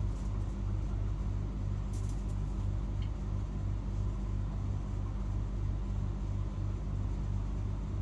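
A steady low machine hum with a regular throb about twice a second, and a few faint clicks about two seconds in.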